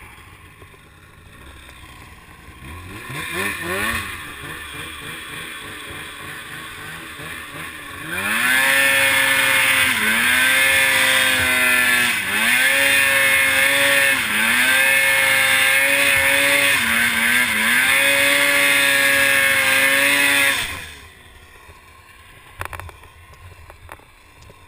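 Polaris 600 IQ Racer snowmobile's two-stroke twin engine revving briefly at first. About eight seconds in it runs hard at high revs for about twelve seconds, its pitch dipping and climbing again every couple of seconds as the throttle is eased and reapplied. It then drops away sharply.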